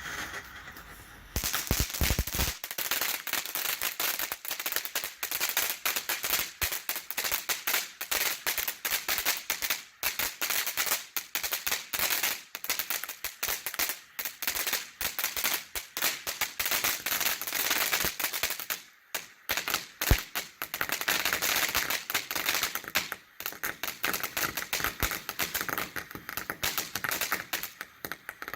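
Dominator Jungle King fireworks fountain burning, a dense rapid crackling over a spraying hiss. The crackle steps up about a second in and briefly thins out about two-thirds of the way through.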